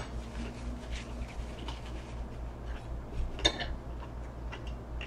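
A few light clinks and clicks of cutlery against a plate as food is handled at the table, the loudest about three and a half seconds in, over a low steady hum.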